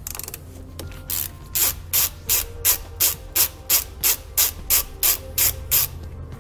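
Ratchet wrench clicking in a steady run of about fourteen clicks, about three a second, as a 13 mm socket turns the nut off a car battery's negative terminal post.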